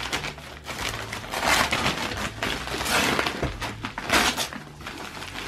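Christmas wrapping paper being torn by hand off a tall gift box, with crinkling throughout and louder rips about a second and a half, three and four seconds in.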